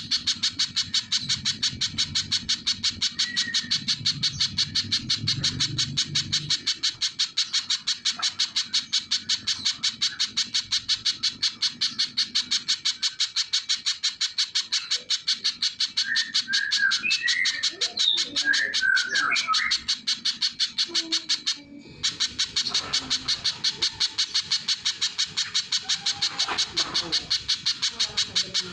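Little spiderhunter singing a long, fast run of sharp, evenly repeated high notes, about four a second, that breaks off for a moment a little past two-thirds of the way. Other, softer bird chirps come and go behind it.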